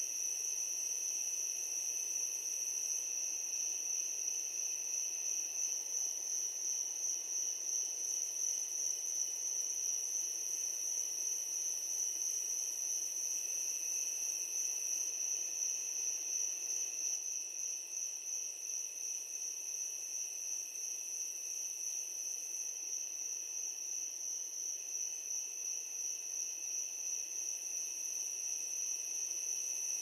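Crickets chirping at night: a steady high-pitched trill, with a second, lower trill that fades in and out.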